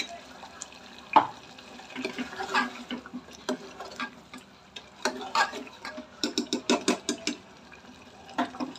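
Metal ladle clinking and scraping against the pressure cooker while paste is tipped in and the thick curry stirred. A sharp clink comes about a second in, and a quick run of knocks follows between about five and seven seconds in.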